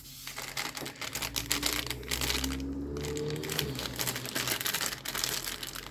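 Irregular crinkling and rustling with many small clicks: a foil blind-bag pack of figures being handled.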